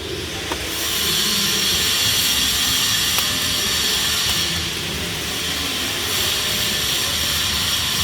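Flux-cored arc welding on pipe: the arc strikes about half a second in and then runs as a steady, loud hiss.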